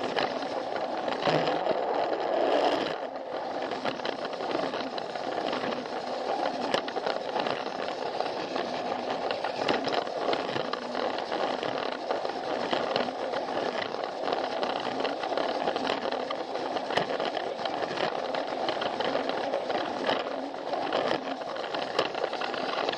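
Plarail battery-powered toy train running along plastic track: a steady whir of its small motor and gearbox with its plastic wheels rattling, and occasional short clicks.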